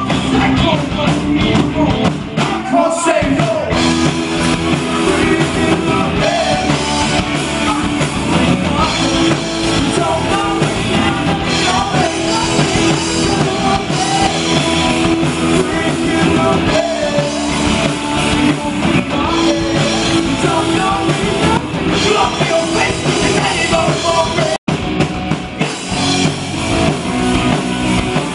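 Rock band playing live. The sound cuts out for an instant about three-quarters of the way through.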